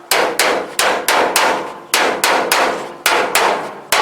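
Hammer blows on the sheet-metal floor panel, about three a second in quick groups of three. Each strike rings briefly.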